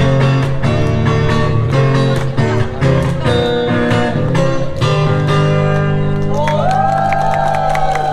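Music with strummed acoustic guitar chords; a long held note that slides in pitch comes in about six seconds in.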